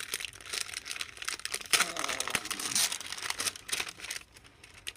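Clear plastic packaging crinkling and rustling as hands open it and draw out a packet of labels: rapid crackles that die down near the end.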